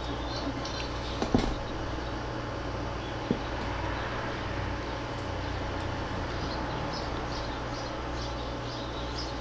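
Steady background noise and low hum of a fight venue's hall, with two sharp knocks about one and three seconds in.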